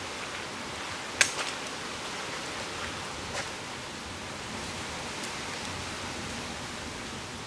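Steady outdoor hiss, with one sharp click a little over a second in and a softer click about three and a half seconds in.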